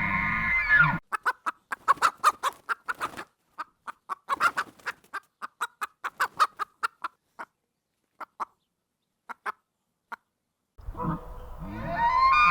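An animal making a rapid, irregular run of short, sharp clucking calls, several a second, that thins out and stops. A pitched, gliding sound runs for about the first second and returns near the end.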